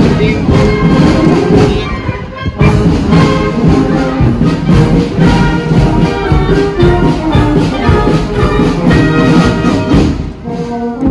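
Military marching band playing a march on the move, led by trumpets and trombones, with a steady beat.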